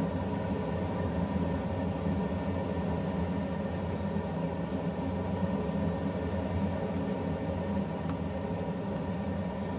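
A stainless steel pot of chicken and shiitake mushroom soup at a full boil on an induction cooktop, a steady low bubbling noise. A few light clinks come from the metal ladle touching the pot as the foam is skimmed.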